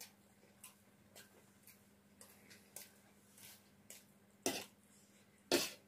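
Close-miked eating: small wet clicks of chewing, then two much louder short noisy sounds about a second apart near the end.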